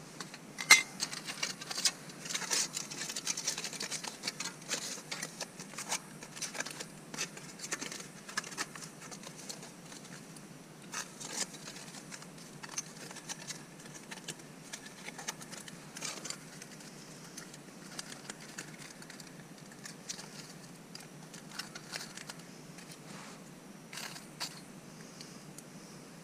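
Close-up handling of camp cooking gear: a sharp clack of metal cookware about a second in, then a busy run of clinks, scrapes and crinkling wrapping that thins out toward the end.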